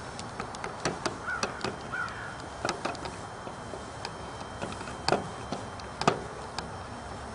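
Irregular clicks and taps of hands handling stripped wires, a plastic twist-on wire nut and a light dimmer switch against a plastic electrical box, the loudest taps about five and six seconds in. Two short chirps sound about one and two seconds in.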